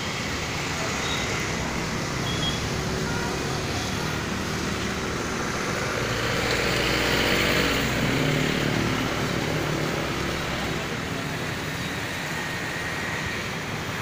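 Steady street traffic noise, with one vehicle passing close by, its engine growing louder and then fading about six to nine seconds in.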